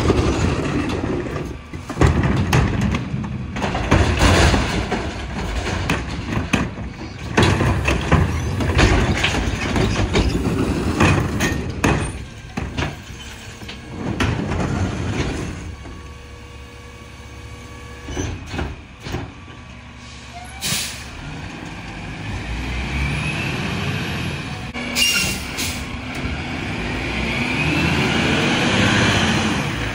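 Recycling carts being tipped into a McNeilus rear loader's hopper, with repeated clattering and banging of loose recyclables over the running Mack LR diesel. After about twenty seconds, short hisses of the air brakes, then the truck's engine revs up and rises in pitch as it pulls away.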